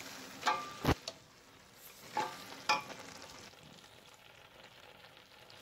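Chicken pieces and sliced onion sizzling in oil in a stainless steel pot as they are turned over, with a few knocks and scrapes of the utensil against the pot in the first three seconds, then a faint steady sizzle.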